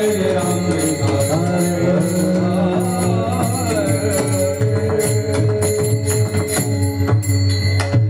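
Marathi kirtan music: a sung devotional melody over a steady drone, with hand cymbals (taal) struck in a regular rhythm that grows more prominent after about four seconds.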